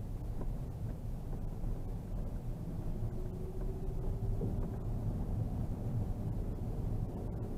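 In-cabin rumble of a Škoda Superb II with its 3.6-litre V6 and four-wheel drive, driving steadily over a snow-covered road: low engine and tyre noise, with a faint whine holding for about a second and a half midway.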